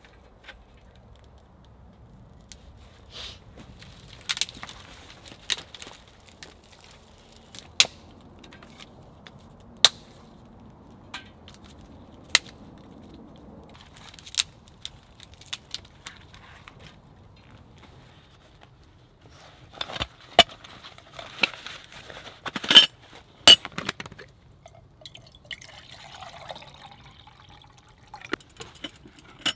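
Dry twigs snapping and crackling while a small kindling fire is laid and lit, with scattered sharp cracks, loudest in a bunch about twenty seconds in. Near the end, water is poured from a bottle into a metal pot.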